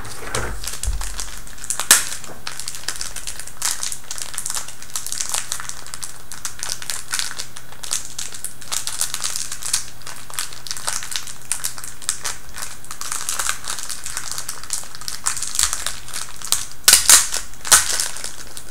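Small clear plastic bag crinkling and rustling as a packet of string is handled and opened, with a few louder crackles near the end.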